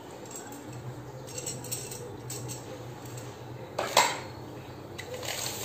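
Metal bangles clinking against each other as they are handled: a few light clinks, then one louder clink about four seconds in.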